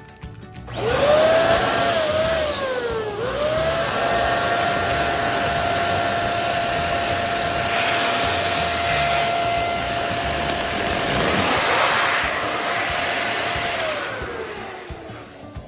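Electric balloon pump blowing air: the motor whines up to speed about a second in, runs steady with a rush of air, then winds down near the end.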